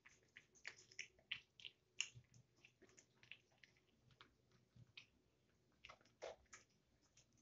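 A kitten chewing wet cat food from a plastic bowl: quiet, rapid wet smacks and clicks of its mouth, in a run for the first few seconds, a short pause, then a few more near the end.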